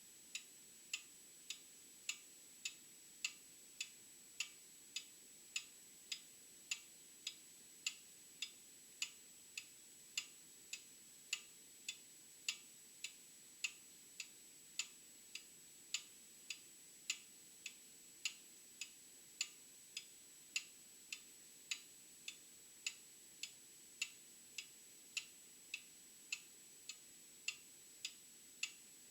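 Old mechanical clock ticking steadily, sharp even ticks at a little under two a second.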